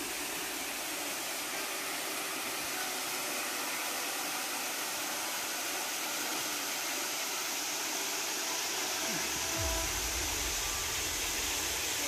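Steady rushing noise of a waterfall's falling water.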